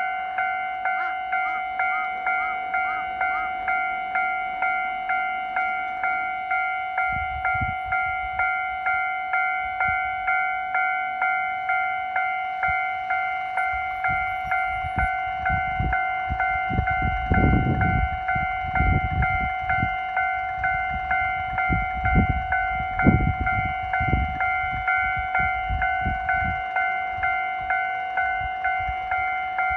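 Japanese level-crossing warning alarm ringing in steady, evenly repeated clangs. From about seven seconds in, a diesel train rumbles over the crossing with heavy knocks from the wheels, loudest around the middle and again a little later.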